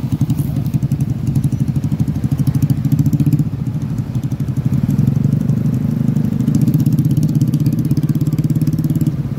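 Motorcycle and scooter engines running at low speed in a slow convoy, the nearest engine easing off about three seconds in and picking up again a couple of seconds later.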